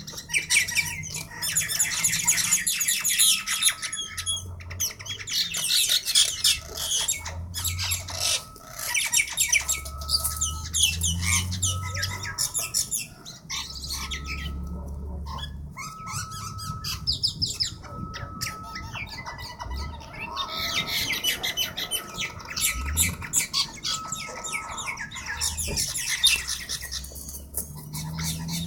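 Several birds squawking harshly and continuously in clusters of rapid, high-pitched calls during a fight, over a short beep that repeats about once a second through most of it.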